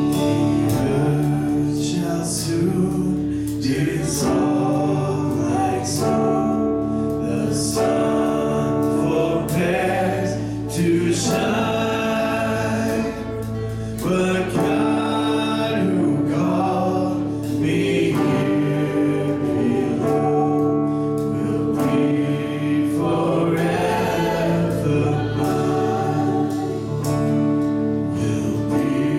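Live worship band playing a song: male and female voices singing together over electric and acoustic guitars and drums.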